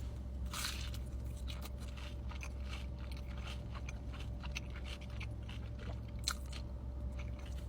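Close-up crunching and chewing of a breaded, fried mozzarella stick: irregular crisp bites and chews, with a steady low hum behind.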